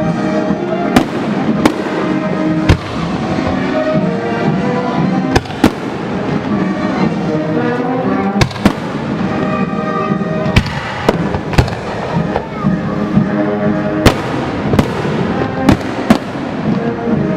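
Aerial fireworks bursting in a rapid series of sharp bangs, about one a second, some with a short crackling tail, over loud music playing throughout.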